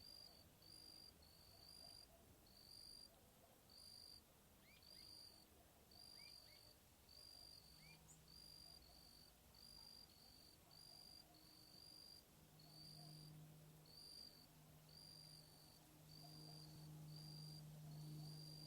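Cricket chirping in a steady rhythm, about two short, high chirps a second. A low hum comes in about halfway and grows louder near the end.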